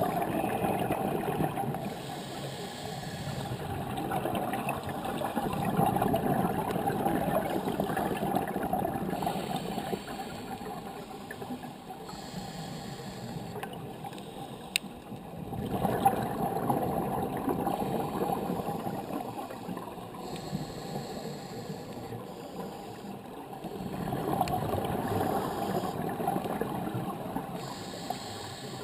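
Scuba diver's breathing heard underwater through a sealed GoPro dive housing: muffled swells of rushing, gurgling regulator exhaust bubbles, each lasting several seconds, over a steady underwater hiss. A single faint click about fifteen seconds in.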